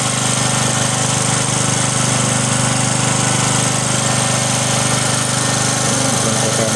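A small engine running steadily, with a fast, even chugging that does not change.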